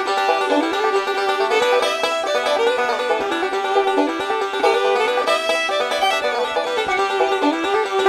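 Instrumental background music in a bluegrass style, led by quick banjo picking.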